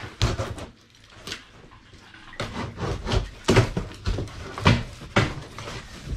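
Thumps, knocks and scraping of a large cardboard box being handled and pushed on, with a string of sharp knocks, the loudest about three and a half seconds in and near five seconds.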